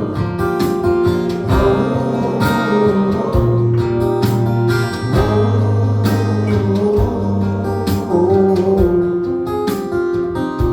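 Instrumental break of a country song: strummed acoustic guitar over a sustained bass line, with no lead vocal.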